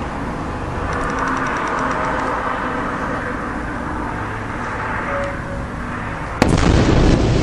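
Steady outdoor background noise, then about six seconds in a sudden sharp crack followed by a loud, continuing low rumble: the blast of a large explosion, which the onlooker takes for a Tochka-U missile strike.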